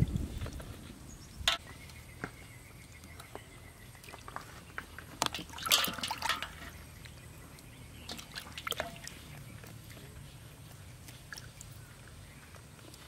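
Water in a metal basin sloshing and dripping as hands rub a softshell turtle's shell and underside, with small scattered splashes and one louder splash about six seconds in.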